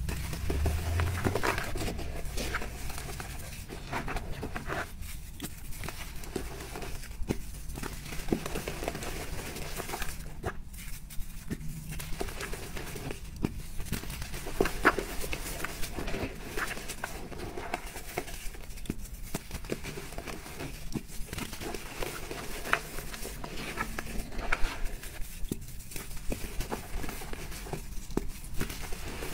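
Hands squeezing and crumbling soft, powdery white blocks dusted with glitter: irregular soft crunches and crackles as the blocks break apart into loose powder, with a few sharper cracks scattered through.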